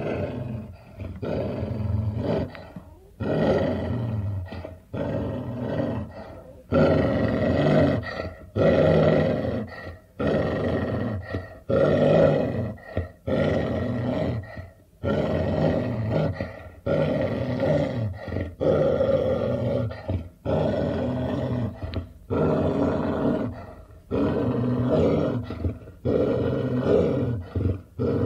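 A hound dog growling over and over, each growl lasting about one to two seconds with short breaks between them.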